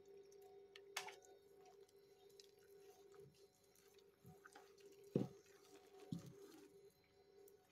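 Faint kitchen sounds while mixing drop scone batter: a steady low hum under a few light knocks of a utensil against the mixing bowl, about a second in, around five seconds in (the loudest) and again near six seconds.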